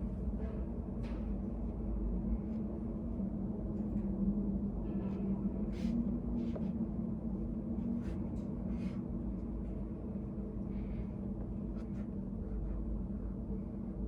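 Indoor room tone: a steady low hum with scattered soft clicks and rustles from someone studying.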